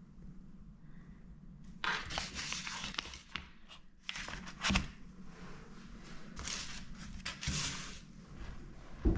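Crunching and crinkling in three spells of a second or so, with a few short knocks, the sharpest one near the end.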